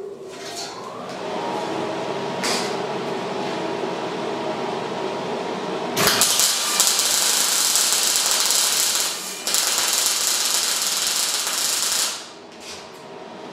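A steady motor hum, then about six seconds in the loud, steady crackle of an electric arc welding a steel brace onto an axle casing. The crackle breaks off for a moment just after the nine-second mark, restarts, and stops about two seconds before the end. This is the first weld of the brace's welding sequence.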